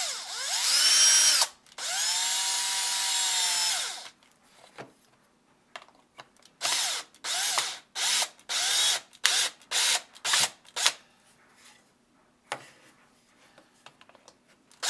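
Cordless drill driving a two-inch screw into a wooden block. It makes two long motor runs with the whine rising and falling as the trigger is squeezed and eased, then about ten short trigger bursts as the screw is snugged down.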